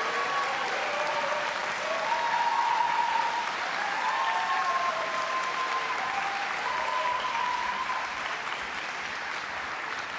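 Audience applauding at the close of a song, steady clapping that thins out somewhat near the end.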